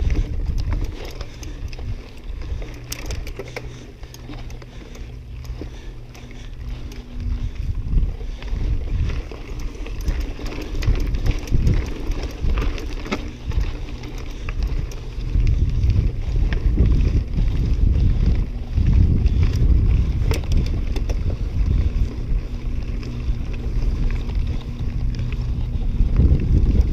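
Mountain bike riding fast over a dirt and gravel trail: a continuous rumble of knobbly tyres over roots and stones, with scattered knocks and rattles and wind noise on the microphone, growing louder about halfway through.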